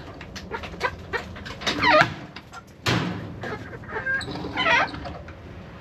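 Backyard hens clucking and calling, with two drawn-out rising-and-falling calls. There is a sharp thump about three seconds in.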